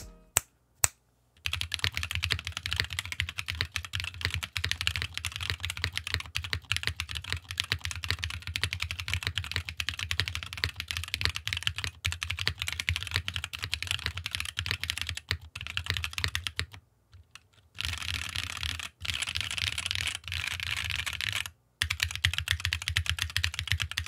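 Mechanical keyboard fitted with stock, unlubricated Tecsee RAW long-pole linear switches (mixed nylon housing, HPE stem) being typed on, a dense clatter of key presses. The typing stops about 17 seconds in and comes back in two shorter bursts near the end.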